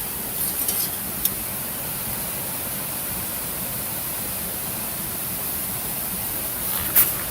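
Campfire crackling: a steady rushing hiss with a few sharp pops, a small cluster just after the start, a single pop a second in, and the loudest pop near the end.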